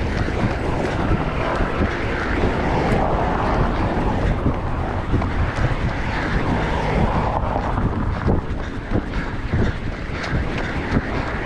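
Steady rumbling wind noise on the microphone, with no speech.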